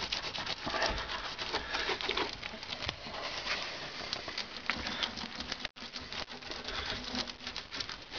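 Thick black bitumen mastic being smeared and dabbed by a gloved hand over freshly welded patches on a car's floor pan, making a sticky, crackly squelching and patting. The sound breaks off for an instant a little before six seconds in.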